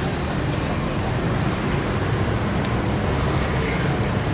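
Steady roadside traffic noise with a low hum, and a faint click about two and a half seconds in.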